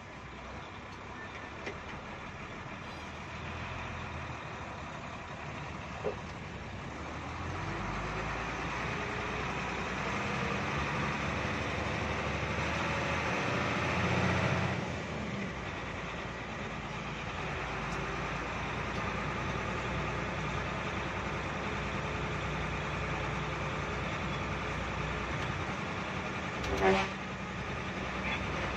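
Diesel engine of a Hino AK3HR Ranger bus heard from inside the cabin as it pulls away, the revs building for several seconds, easing off about halfway through, then running steadily. A short horn toot sounds near the end.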